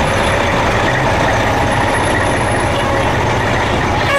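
A large vehicle's engine running steadily.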